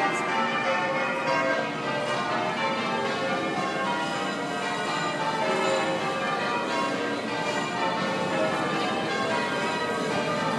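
Southwark Cathedral's tower bells being rung in changes: a continuous, even run of strokes from bells of different pitches, each ringing on under the next.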